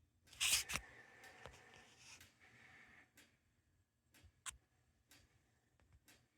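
Faint handling noise: a brief rustle about half a second in, then a few scattered light clicks, the sharpest a little after the middle.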